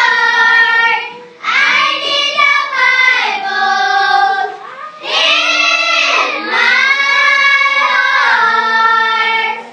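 A young child singing, holding long notes, with short pauses between phrases.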